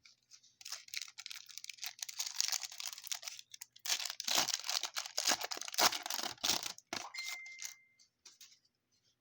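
A trading-card pack wrapper being torn open and crinkled: two spells of crackling tearing, the second and louder one starting about four seconds in.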